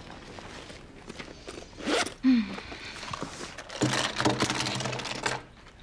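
Rummaging in a handbag, then makeup items clattering out of a pouch onto a table in a quick run of small clicks and knocks. A low steady tone sounds under the clatter for about a second and a half near the end.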